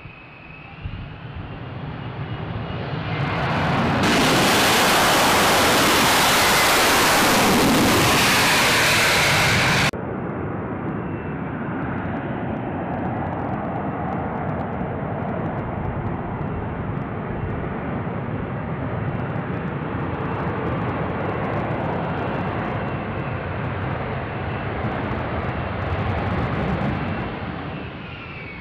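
Jet noise from F-35B Lightning II fighters. It builds to a very loud stretch with a falling pitch, then cuts off abruptly about ten seconds in. After that comes a steady jet engine noise as an F-35B comes in low and sets down on the runway, fading near the end.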